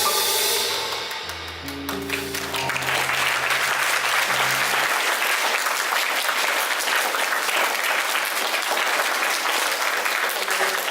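A jazz piano trio finishes its tune: the cymbals stop about a second in and low closing notes ring for a few seconds. Audience applause starts about two seconds in and carries on steadily.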